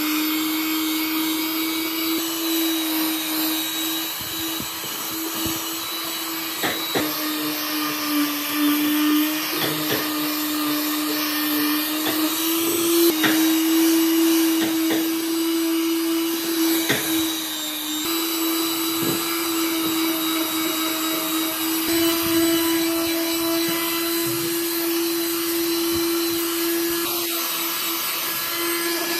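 Electric palm sander running steadily with a constant hum as its pad rubs over wood, with a few short knocks as the sander is moved and set against the piece.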